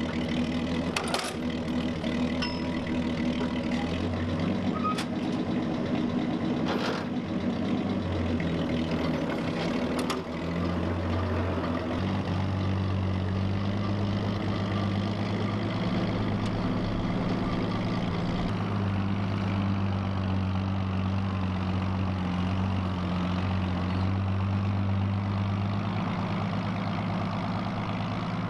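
Forklift engine running as the forklift drives off under load with a rolled-up steel tank track hanging from its forks, its pitch shifting up and down a few times. Three sharp clanks in the first ten seconds.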